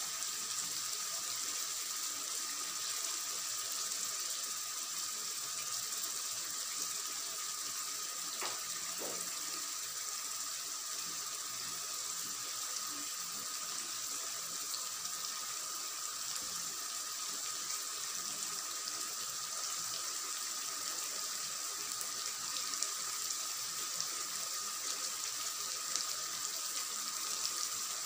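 Fish curry cooking in a pot over the flame: a steady sizzling, bubbling hiss of the masala gravy.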